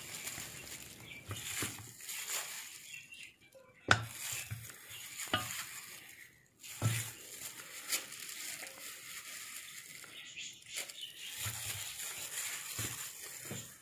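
Raw chicken wings being dropped into a stainless steel bowl: irregular soft, wet thuds and a few sharp clinks against the metal, over a steady hiss.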